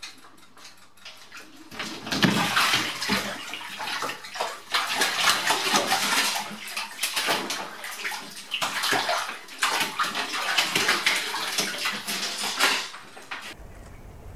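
Bath water splashing as a cat drops into a filled bathtub about two seconds in and thrashes about, clawing at the side to climb out; the loud, irregular splashing stops suddenly near the end.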